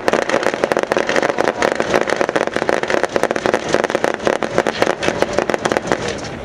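Massed fire from Type 89 5.56 mm assault rifles and a 5.56 mm MINIMI light machine gun: a dense, rapid rattle of overlapping shots that starts abruptly and keeps going.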